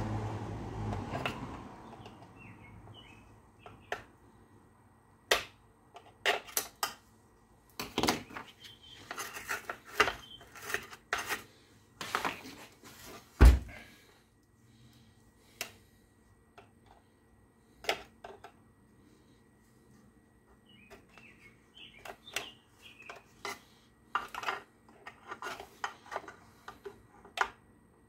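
Small tools and metal parts of a circular saw clicking, tapping and clattering on a workbench during disassembly, with one sharp, heavier knock about halfway through. Faint bird chirps now and then in the background.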